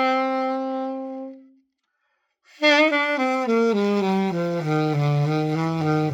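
Yamaha YAS-52 alto saxophone played solo. A held note fades away, and after a short pause a run of notes steps down into the low register, ending on a long low note.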